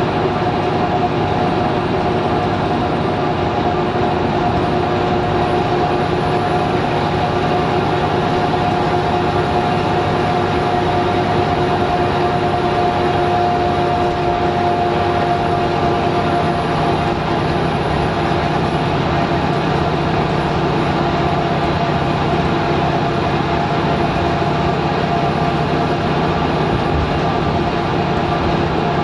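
Scania L94UB Wright Solar single-deck bus, heard from inside the passenger saloon while on the move. Its nine-litre five-cylinder diesel drones steadily over road and tyre noise, with a steady whine running through it.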